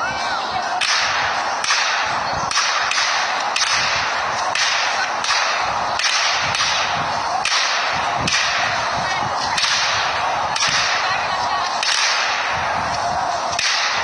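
Fireworks firing in quick succession from a ground-launched barrage: sharp cracks about once a second, with a continuous crackle of bursting stars between them.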